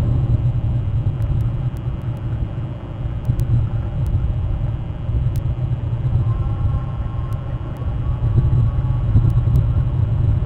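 Steady low rumble, with a faint thin hum joining in about six seconds in.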